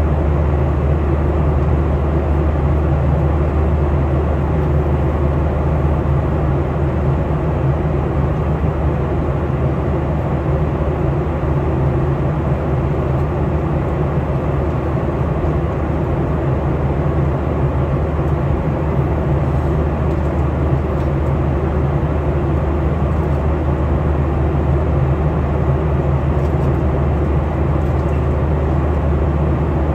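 Airliner cabin noise in flight: the steady, low drone of the engines and the airflow past the fuselage, unchanging throughout.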